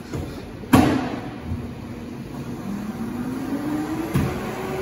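A sharp knock, then a smoothie blender's motor whining and rising steadily in pitch before holding at one level, over a background of café noise.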